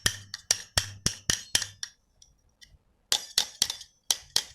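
Quick metal-on-metal taps, about four a second, ringing brightly, as a seized ball bearing is knocked loose on the shaft of an air-conditioner outdoor-unit fan motor. The tapping stops for about a second midway, then starts again.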